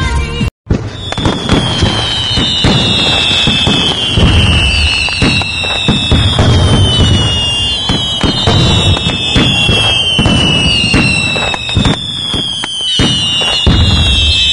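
Fireworks going off: a run of whistling shots, a new falling whistle starting every second or two, over dense crackling and low thumps. The sound begins after a short gap just after the start.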